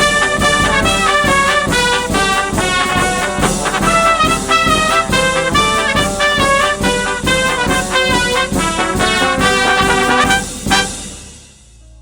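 Instrumental music beat with a steady rhythm and a melody line, fading out near the end.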